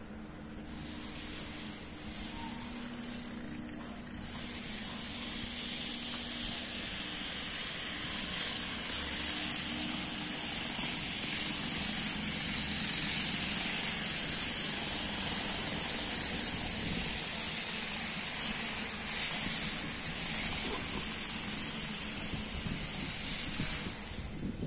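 Steady high hiss of a bicycle rolling along a paved road, tyre and air noise, growing louder about five seconds in.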